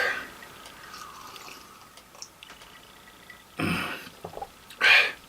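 A person sipping a drink from a glass: a few short, wet sips, the loudest near the end.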